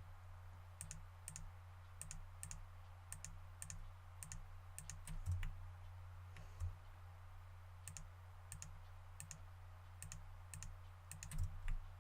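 Computer mouse and keyboard clicking irregularly, about one or two clicks a second, as parts of a 3D model are selected, over a faint low steady hum.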